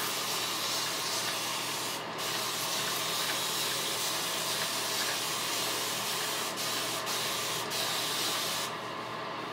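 Water spray bottle misting hair: a steady hiss that breaks off briefly about two seconds in and stops near the end.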